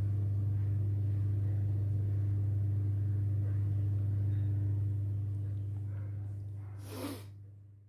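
Steady low hum, like electrical or motor hum, fading away over the last few seconds, with a short rustle about seven seconds in.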